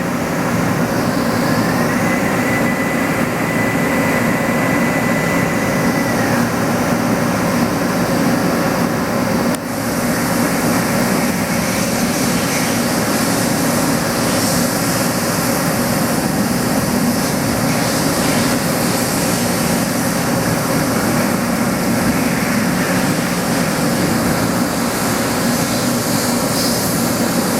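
Mori Seiki SL-25Y CNC turning center running a Y-axis milling cycle with its live tool: a steady, loud machining drone. A thin high whine rises about a second and a half in and holds until about six seconds in.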